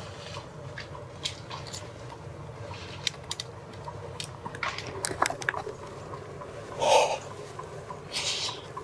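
Light rustling and scattered small clicks close to the microphone, then a few short, heavy breaths or whispers near the end from the excited bowhunter.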